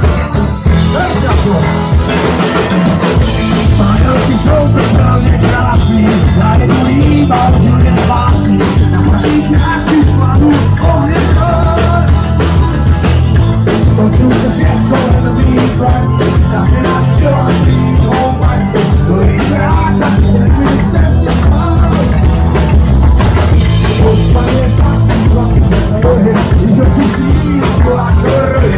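A live punk rock band playing loudly, with drum kit and guitars and some singing. The recording is distorted and muddy.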